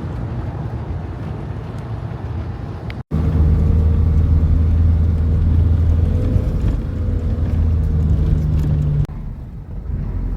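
Campervan driving: steady engine and road rumble. About three seconds in, a sudden cut brings a louder, steady low engine drone, which drops back to a quieter rumble near the end.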